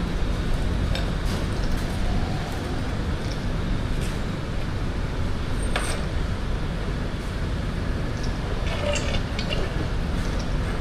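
Workshop background: a steady low rumble with a few light metallic clinks from tools being handled, about a second in, near the middle and near the end.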